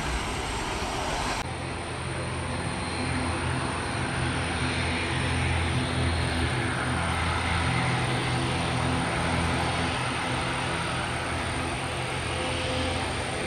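Airbus A320-200's jet engines on final approach: a steady drone with low hums under it. For the first second and a half it is instead a Boeing 737-800 climbing out after takeoff, which cuts off abruptly.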